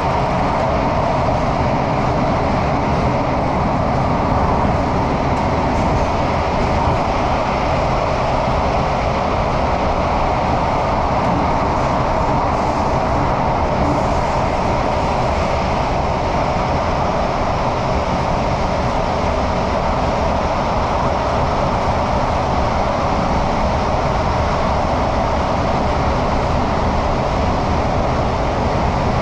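Singapore MRT train running at speed through a tunnel, heard from inside the carriage: a steady, even rumble and hiss of wheels on rails and running gear, with no breaks or changes.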